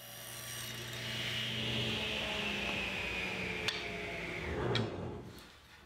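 Table saw running as a cedar strip is ripped with a push stick; its whine slowly drops in pitch as the blade winds down and fades out near the end, with a couple of light knocks.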